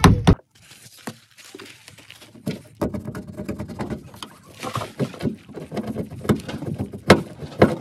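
Plastic trim-removal tool scraping and chipping old windshield urethane off the painted window flange of a Nissan NV3500 van. After a quieter stretch of about two seconds comes a run of small, irregular clicks and scrapes, with one sharper knock near the end.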